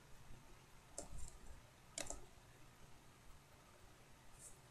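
A few faint, sharp clicks over quiet room tone: one about a second in, a double click about two seconds in, and a lighter one near the end.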